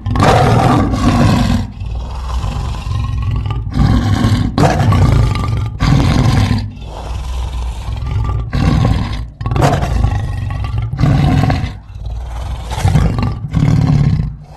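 Big-cat roars and growls presented as the voice of an Ice Age cave leopard: a series of loud roars a second or so apart, with a low rumbling growl between them.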